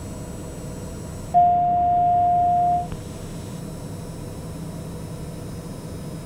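Steady in-flight drone of a Socata TBM 910 turboprop on final approach, with one loud, steady electronic tone that sounds about one and a half seconds in and lasts about a second and a half.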